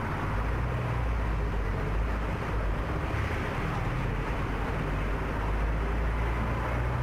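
A motor vehicle's engine running steadily nearby, a low, even rumble with traffic noise.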